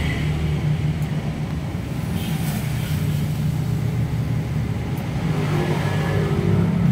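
Steady low engine rumble, getting louder near the end.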